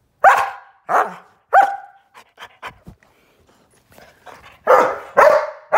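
Norwegian Elkhound barking in play: three sharp, short barks in the first two seconds, then three more in quick succession near the end.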